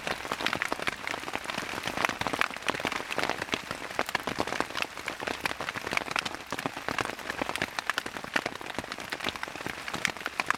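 Heavy rain pattering on the rainfly of a Eureka Backcountry 1 tent, heard from inside the tent: a dense, steady patter of countless drops.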